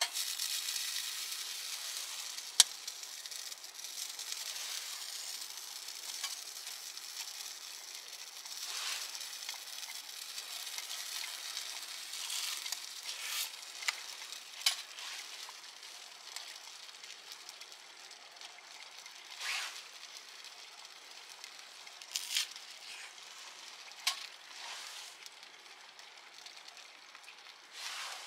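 Food sizzling in a hot pan: a hiss that starts abruptly and slowly dies down, broken by a few sharp pops and spits.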